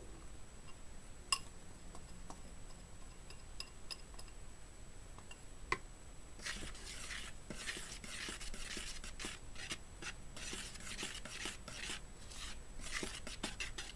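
Wire whisk stirring flour and cornstarch in a plastic bowl, in quick, scratchy strokes that start about halfway through. Before that there are a couple of light knocks.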